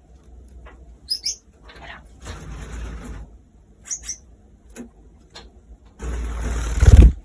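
Pet small birds giving a few short, high chirps, twice, with rustling between. Near the end a loud rushing noise about a second long ends in a thump.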